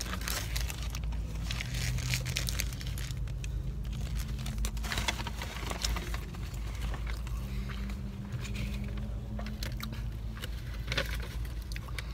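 Paper food wrappers crinkling and rustling with close-up chewing, over a low steady hum inside a car.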